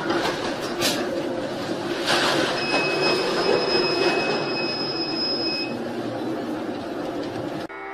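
Storm wind and heavy seas breaking over a ship's bow: a loud, steady rushing noise with a couple of crashes of spray in the first two seconds. A steady high whistle sounds for about three seconds in the middle. The sound cuts off suddenly near the end.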